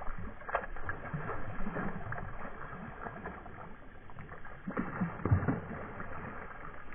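A hooked trout splashing and thrashing at the water's surface while it is played toward the net. One splash comes about half a second in, and a louder cluster comes about five seconds in, over steady water lapping.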